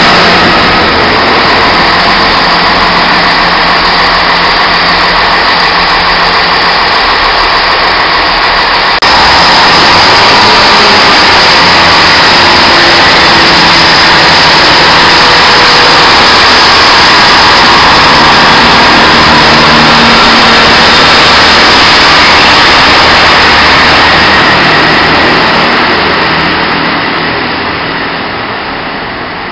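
Chiltern Railways diesel multiple unit's engines running loudly beside the platform, a dense steady drone with a low hum. The sound changes abruptly about nine seconds in, then fades away near the end as the train pulls out.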